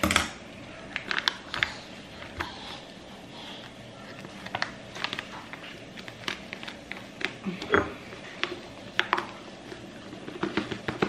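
A foil coffee packet crinkling and rustling in a series of short, scattered crackles as it is handled and opened. Near the end it is tipped and ground coffee starts pouring into a glass jar. There is a sharp knock right at the start.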